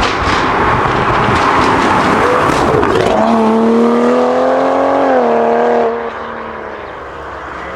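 Modified Toyota GR Supra Mk5 at full throttle: a rough, noisy engine sound for about three seconds, then a strong steady engine note held at high revs and rising slightly, which drops away about six seconds in and fades.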